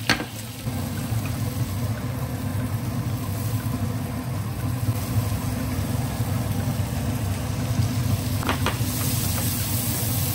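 Mushrooms and sausages sizzling in butter in a rectangular tamagoyaki frying pan, stirred with wooden chopsticks, over a steady low hum. A sharp tap sounds at the start and a couple of light clicks come near the end.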